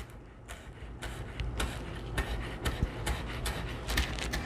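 Chef's knife chopping chives on a bamboo cutting board: a series of sharp knocks of the blade on the board, roughly two a second.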